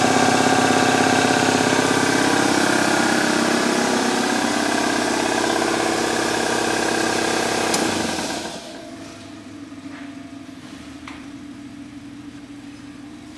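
Ingersoll Rand electric belt-driven air compressor running steadily, then cutting out with a sharp click about eight seconds in and running down within half a second. A faint steady hum and a couple of light ticks remain afterwards.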